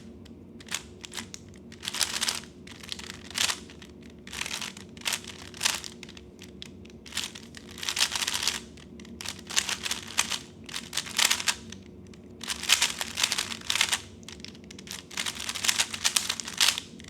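3x3 speedcube being turned fast during a timed solve: rapid clicking and clacking of the plastic layers in quick bursts, broken by short pauses between steps.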